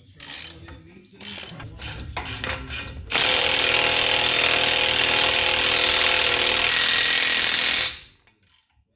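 A few metallic clinks and knocks, then a Milwaukee FUEL cordless impact wrench hammering steadily for about five seconds as it runs the CV axle nut down onto the hub, stopping abruptly near the end.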